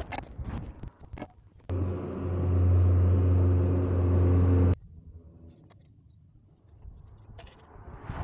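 A few sharp taps of masonry tools on a concrete block, then a motor runs with a steady low hum for about three seconds, starting and cutting off abruptly.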